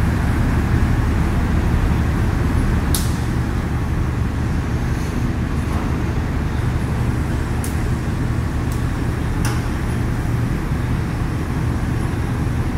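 Volvo EC300DL hydraulic excavator's diesel engine running with a steady low rumble as the machine travels slowly on its steel crawler tracks, with a few sharp clicks.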